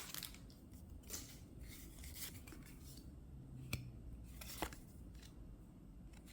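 Faint sliding and scratching of Yu-Gi-Oh trading cards being handled and flipped through, with two sharp clicks a little under a second apart near the middle.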